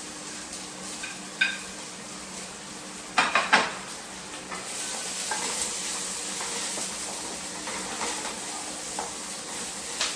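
Garlic going into onions and ginger sautéing in olive oil: a cooking utensil knocks against the pan once, then several times about three seconds in, and a steady sizzle comes up from about halfway through.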